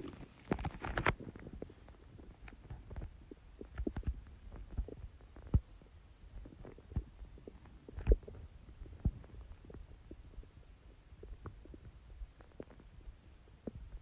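A human stomach growling with watery gurgles: many short, irregular gurgles and pops at uneven intervals, the louder ones about a second in and again around the middle.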